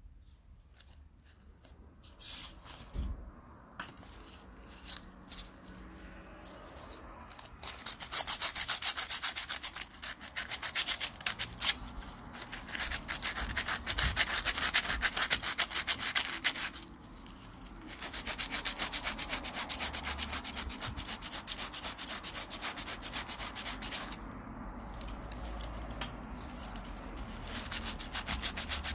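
180-grit sandpaper rubbed by hand over a metal watch bracelet and clasp: quick back-and-forth scraping strokes. It starts quietly with a few handling clicks, then comes in fast and steady about a third of the way in, with a short pause midway.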